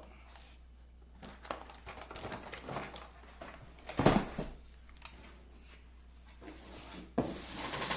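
Toy packaging and a plastic action-figure horse being handled: scattered crinkles and small clicks, one sharp knock about four seconds in, and a longer stretch of crinkling near the end.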